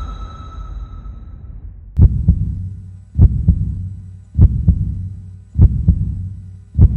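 Heartbeat sound effect in the soundtrack: a low double thump about every 1.2 seconds, starting about two seconds in, over a steady low hum. A music chord fades out during the first second or so.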